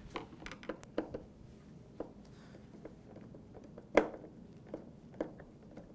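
Scattered light clicks and taps of a hard plastic ride-on kart fairing being pressed into place and a screwdriver working at a screw in it. The sharpest knock comes about four seconds in.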